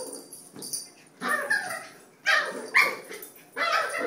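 Puppies barking and yipping: about five short, high barks spaced roughly a second apart.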